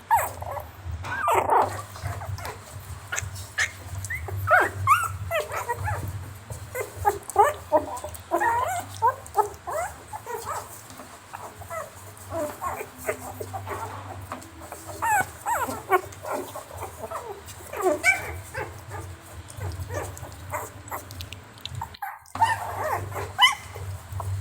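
Puppies yipping, barking and whimpering in quick, overlapping high-pitched calls, with a low steady hum underneath and a brief break near the end.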